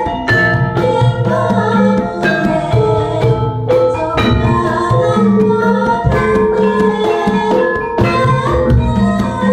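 Javanese gamelan ensemble playing: bronze-keyed metallophones (saron and demung) ring out a steady melody over pot gongs and hanging gongs, with kendhang hand-drum strokes keeping time.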